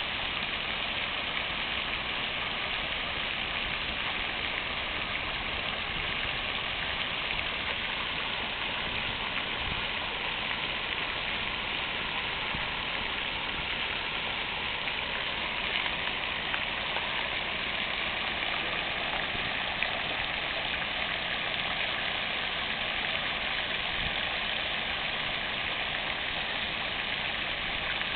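Fountain water splashing steadily, an even rushing hiss.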